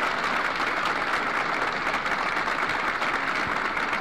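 A large crowd applauding, a steady, even clatter of many hands.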